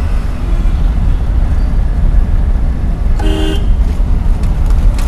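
Steady low rumble of a car's engine and road noise heard from inside the cabin as it moves slowly in traffic. About three seconds in, a vehicle horn gives one short toot of about half a second.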